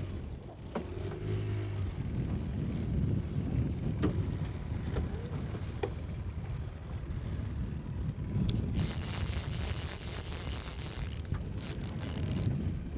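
Fishing reel drag buzzing as a hooked chinook salmon runs and pulls line off. The buzz starts about two-thirds of the way in, lasts a couple of seconds and comes again briefly, over a steady low rumble.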